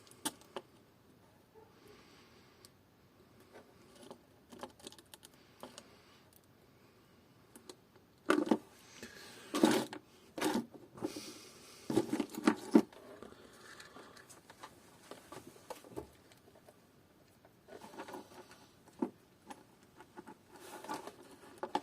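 Scattered clicks, taps and short rattles of small tools and parts being handled during soldering work. They come in clusters, loudest about eight to thirteen seconds in, with another group near the end.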